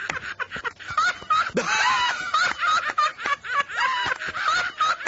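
High-pitched snickering laughter: quick, rapidly repeated giggles with no words.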